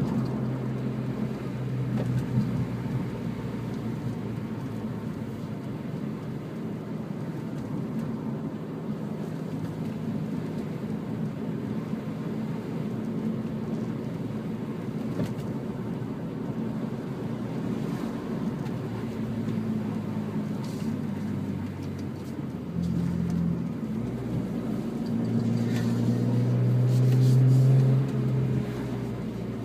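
BMW M3 E46's straight-six engine running at low revs in town, heard from inside the cabin with tyre and road noise. The engine note swells near the end.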